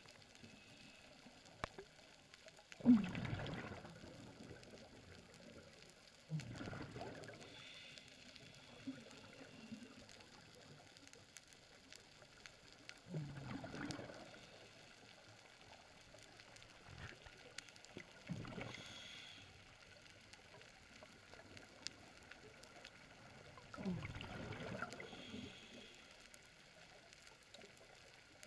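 Underwater scuba breathing: a diver's exhalations through the regulator release bubble bursts, five of them about five seconds apart, each lasting about a second, over a faint steady hiss.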